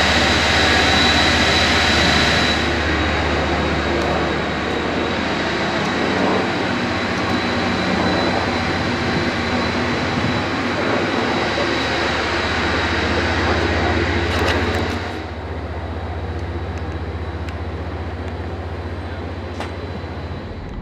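Steady whir of a warship's deck ventilation fans and machinery, with a low hum and a thin high whine. It becomes quieter about 15 seconds in.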